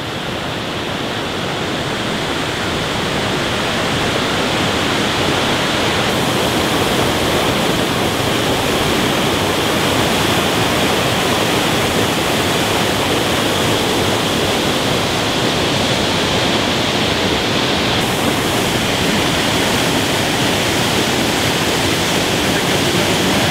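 Mountain waterfall's steady rush of falling water, loud and constant, growing a little louder over the first few seconds.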